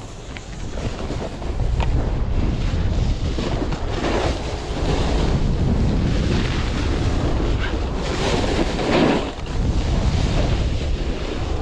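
Strong wind buffeting the microphone as a low, rough rumble, over the hiss of a snowboard sliding and carving on snow, which swells twice.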